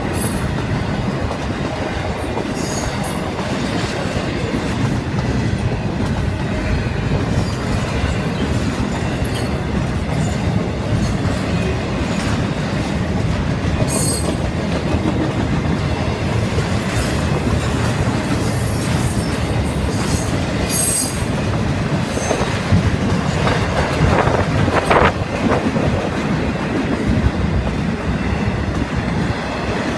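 Norfolk Southern intermodal freight train rolling past: a steady rumble of wheels on rail with clickety-clack over the joints, and brief high-pitched wheel squeals now and then.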